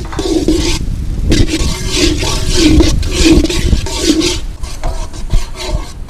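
Long metal spatula scraping and stirring onions and tomatoes in a hot black iron kadai, about one stroke every two-thirds of a second over the sizzle of frying; the strokes thin out near the end.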